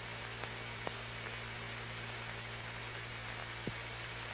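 Steady hiss and mains hum of an old film soundtrack during a pause in the narration, with two faint clicks, about a second in and near the end.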